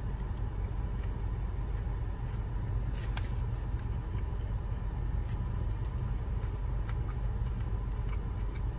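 Steady low rumble inside a stationary car's cabin, with a faint steady tone and a few soft clicks.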